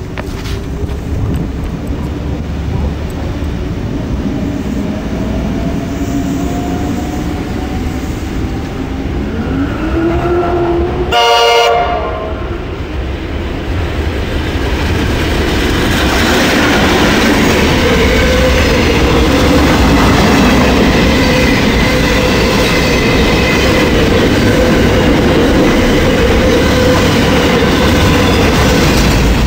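Diesel-hauled container freight train approaching, its engine note slowly rising, with one short horn blast about eleven seconds in. From about halfway, the locomotives and container wagons run past close by, the steady sound of wheels on rails louder.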